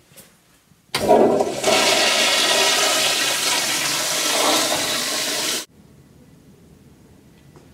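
Commercial flushometer toilet flushing: a loud rush of water that starts suddenly about a second in and cuts off abruptly after about four and a half seconds.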